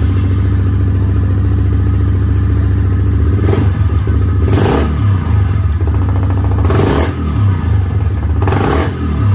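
2021 Honda CRF110F's 109 cc single-cylinder four-stroke engine running through a newly fitted aftermarket PC exhaust. It idles and is given four short throttle blips.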